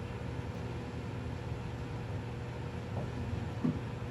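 Steady low hum and hiss of background noise, with two faint light clicks near the end as the small parts of a gas cap are handled during reassembly.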